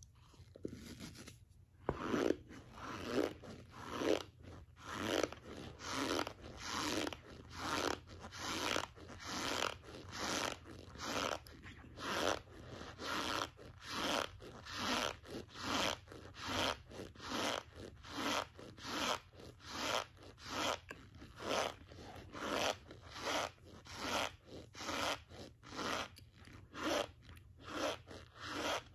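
A mouthful of raw cornstarch being chewed: a steady run of chews, about one and a half a second, starting about two seconds in.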